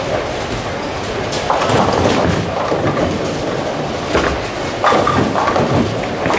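Bowling alley din: bowling balls rolling down the lanes with a steady rumble, broken by several sharp clattering crashes of pins being struck, about one and a half, four, five and six seconds in.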